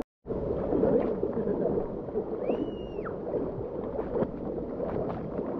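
Water flowing and splashing in a steady, even rush, after a brief dropout at the very start. About two and a half seconds in, a short whistle-like tone rises, holds and falls away.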